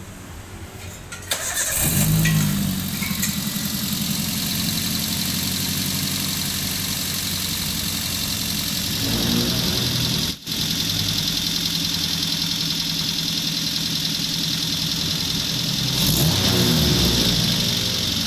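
Toyota Avanza's 1.3-litre four-cylinder engine started up a couple of seconds in, then running steadily through a 4-1 header and a straight pipe in place of the stock silencer canister, with the original resonator and rear muffler. The engine is revved briefly around nine seconds in and again around sixteen seconds in.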